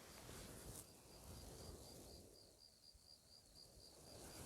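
Near silence with faint insect chirping: a high note repeated evenly about four times a second, stopping near the end.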